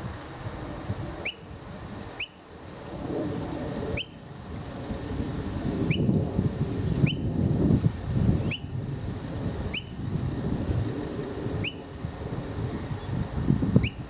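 Fledgling noisy miner begging calls: about nine short, sharp, squeaky notes, each a quick curved sweep, spaced irregularly every second or two, over a low background rumble.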